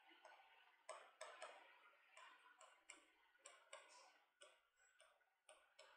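Faint, irregular ticks and light scrapes of writing on a board as a line of words is written, several small strokes a second starting about a second in.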